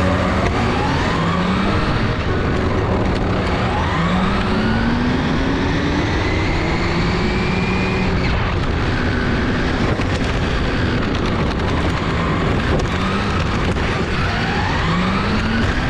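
Electric 1/8-scale GT RC race cars running on a track: overlapping motor and drivetrain whines rise in pitch again and again as the cars accelerate, over a steady hiss of tyres and running gear.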